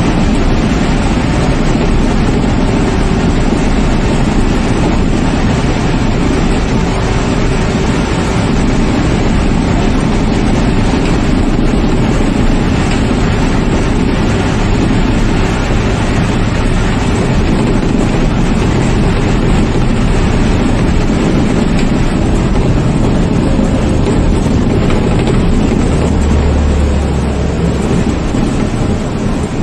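Steady engine and tyre rumble heard from inside a bus running along a concrete guided busway, with a deeper low hum for a couple of seconds near the end.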